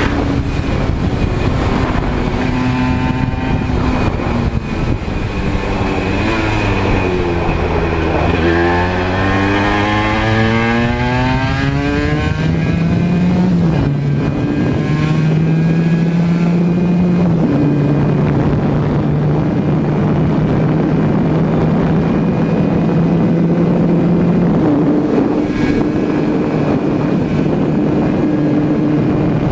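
Aprilia RS125's single-cylinder two-stroke engine heard onboard at speed: the revs drop about six to eight seconds in, then climb steeply and hold high, with a few gear changes, under heavy wind noise on the microphone.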